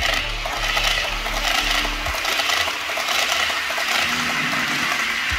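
H0-scale model double-deck passenger train running past close by: a steady rattling and clicking of its wheels on the model track, with the whir of its motor.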